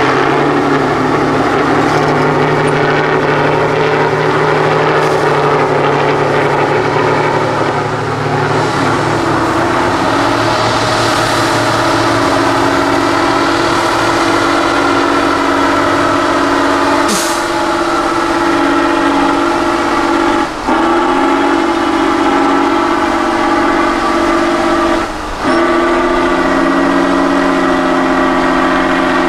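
Tatra 813 8x8 truck's diesel engine held at high revs under heavy load while it climbs a steep muddy slope. The revs dip briefly twice in the second half and then pick up again.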